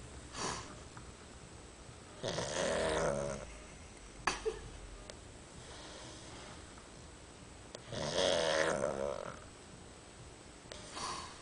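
A sleeping pet snoring: two long snores, each about a second, about six seconds apart, with softer breaths between them.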